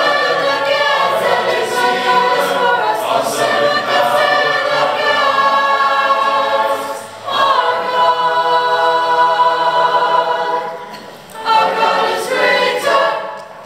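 Mixed youth choir of boys and girls singing a cappella, without instruments. The singing breaks off briefly twice, and a last phrase fades away near the end.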